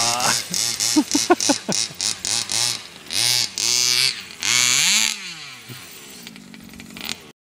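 Two-stroke petrol engine of a King Motor Baja 1/5-scale RC buggy revving in repeated bursts as it drives, its pitch rising and falling. About five seconds in it winds down to a fainter steady idle, and the sound cuts off suddenly near the end.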